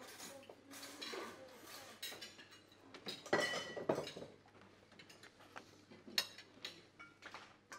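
Metal cutlery clinking and scraping on ceramic dinner plates as people eat, in scattered sharp clicks with a short burst of voice about three seconds in.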